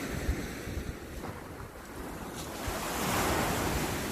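Sea surf washing onto the beach, swelling louder about three seconds in, with wind rumbling on the microphone.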